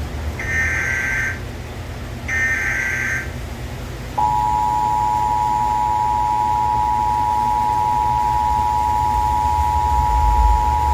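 Emergency Alert System tones for a Flash Flood Warning. First come two harsh, screeching data bursts of the SAME digital header, each about a second long. Then, about four seconds in, the steady two-tone EAS attention signal starts and holds, announcing that a warning message follows.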